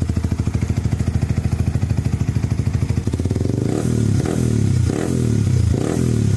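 Motorcycle engine breathing through an aftermarket Akrapovic R6-model slip-on exhaust. It idles with a steady pulsing beat, then the throttle is blipped about four times in quick succession in the second half.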